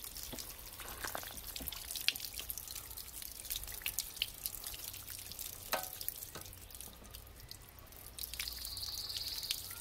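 Water dripping and trickling out of an RV water heater tank's drain/anode port as the tank drains after flushing, in scattered, irregular drips and splashes.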